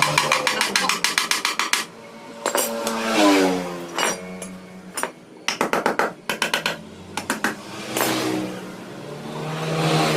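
Runs of rapid metallic clicks and taps from hand tools working on a motorcycle engine's crankcase, with a pitched sound gliding up and down between them.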